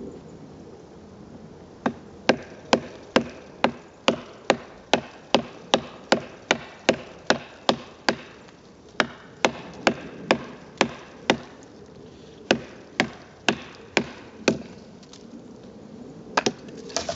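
Wooden baton striking the spine of a Mora Bushcraft knife, batoning the blade through a stick: a run of sharp knocks at about two and a half a second, with a short break partway through and a longer pause before a last couple of blows near the end.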